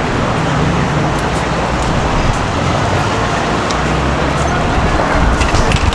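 Steady road traffic noise of a busy city street, a low rumble of passing cars and buses, with a few light clicks near the end.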